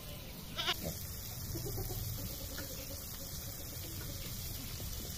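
Chicken pieces deep-frying in oil in an iron kadai, a steady sizzle. A brief pitched call sounds faintly less than a second in.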